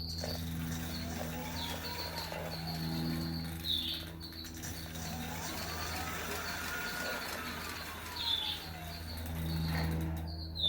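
3000 W e-bike rear hub motor spun up under throttle twice, its whine rising and falling each time: a short run near the start and a longer, higher one in the middle. It is running again after a Hall sensor replacement. Birds chirp throughout.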